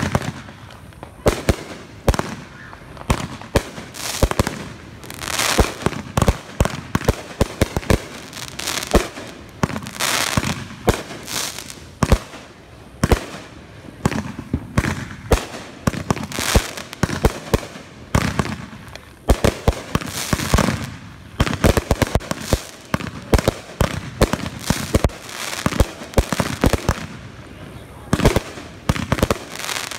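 Aerial fireworks bursting overhead in quick succession: dozens of sharp bangs throughout, many coming in rapid clusters.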